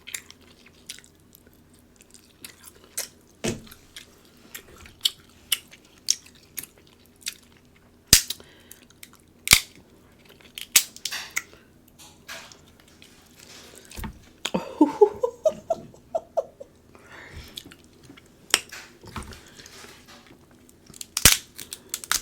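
Close-miked eating of a seafood boil: chewing and mouth sounds, with many sharp clicks and cracks scattered throughout. A brief vocal sound with a gliding pitch comes about halfway through.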